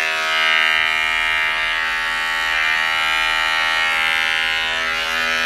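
Electric dog grooming clippers running with a steady hum, shaving matted fur off a puppy's belly.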